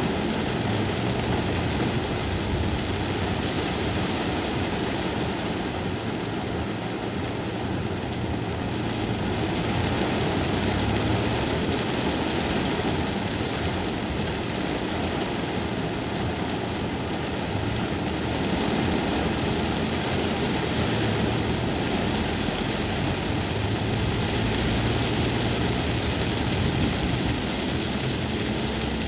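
Heavy rain on a car's windshield and roof, heard from inside the cabin as a loud, steady hiss. The car's engine runs with a low hum underneath.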